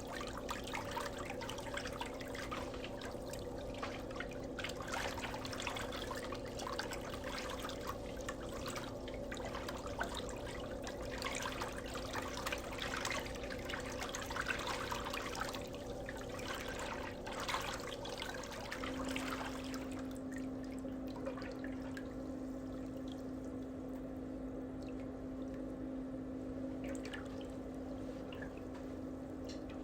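Water trickling and dripping over a steady low hum; the trickle eases off about two-thirds of the way through while the hum carries on.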